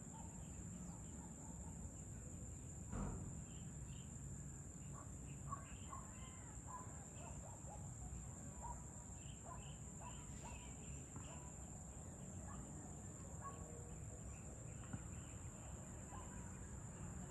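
Dusk ambience of crickets and other insects keeping up a steady, high-pitched drone, with scattered short bird chirps. A single knock sounds about three seconds in.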